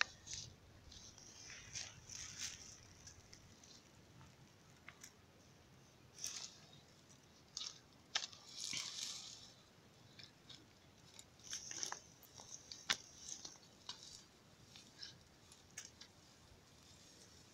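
Faint rustling and crunching of dry grass and brush in short, irregular bursts, with a few sharp clicks.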